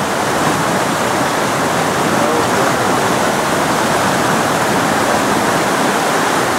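Rushing stream water pouring through whitewater rapids over rocks: a loud, steady rush.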